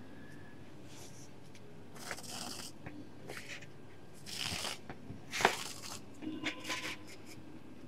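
Crocheted cotton handle and bag fabric rustling and scraping as the handle is pulled through the stitches. There are a few short bursts, the loudest about halfway through, followed by light clicks.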